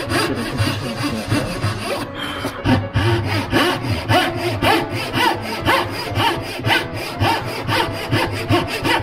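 Hand saw cutting into the end of a wooden board with steady, regular strokes, about three a second, sawing the angled cheeks of dovetail pins.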